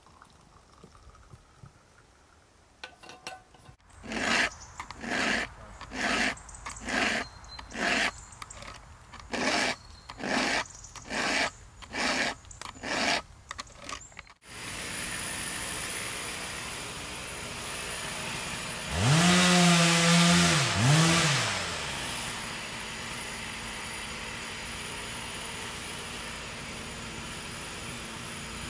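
A hand file rasping along a Stihl chainsaw chain to sharpen it, in about ten even strokes roughly one a second. This stops suddenly and gives way to a chainsaw engine running steadily, revved up and down twice near the middle.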